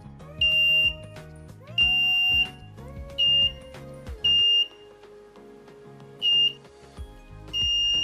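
Piezo buzzer of an LM358 infrared proximity alarm sounding a steady, high-pitched beep, triggered as an object comes in front of the IR sensor. It sounds five short beeps of about half a second at uneven intervals, then holds a continuous tone near the end.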